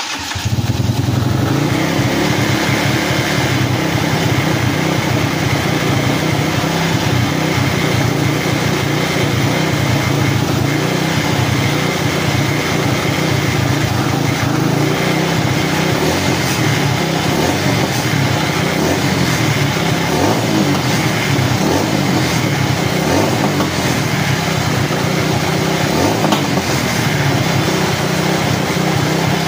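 Coolster 250cc ATV engine catching right at the start and running steadily, now that it runs again after a new wiring harness.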